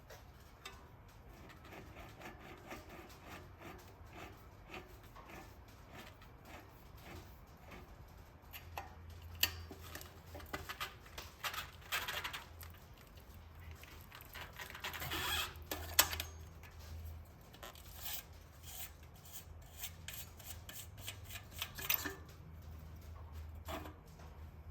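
Irregular clicks, taps and rubbing of small parts and tools being handled, with a few sharper knocks scattered through and a faint low hum underneath.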